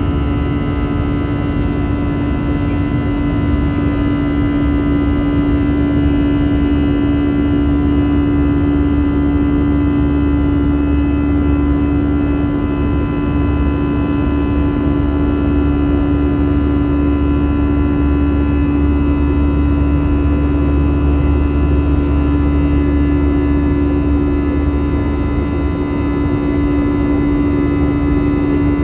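Airbus A320-214's CFM56 jet engines heard from inside the passenger cabin: a loud, steady drone with one strong unwavering hum over a low rumble.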